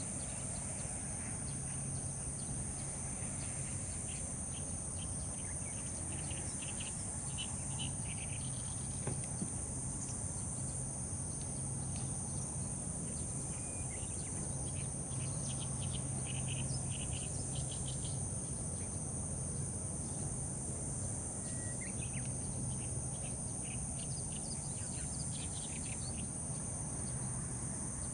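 Outdoor summer ambience: a steady high-pitched insect trill, with scattered short bird chirps now and then and a faint low hum underneath.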